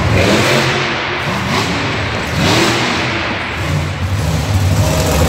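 Monster truck engine revving hard, its pitch rising and falling as the truck drives across the arena floor toward the camera.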